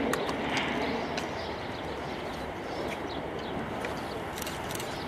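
Steady airport apron background noise, the distant rush of jet aircraft, with a few faint short high chirps scattered through it.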